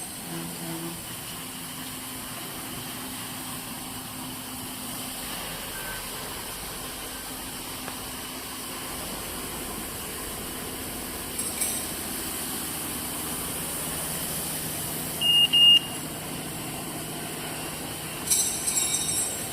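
Floor-scrubbing machine running with a steady motor hum. It gives a short high beep in two quick pulses about fifteen seconds in, and brief clattering near the middle and the end.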